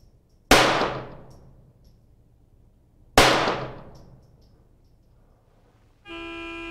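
Two .22 LR pistol shots from a CZ 75B with a Kadet conversion kit, about three seconds apart in a timed rapid-fire string, each a sharp crack with a short echo. About six seconds in, an electronic range timer sounds a steady buzzing tone for about a second, the signal that the timed string is over.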